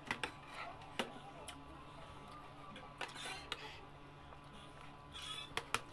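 Spoons and forks clinking and scraping against ceramic plates and a serving dish during a meal: a handful of sharp, irregular clicks with a couple of short scrapes, over a faint steady hum.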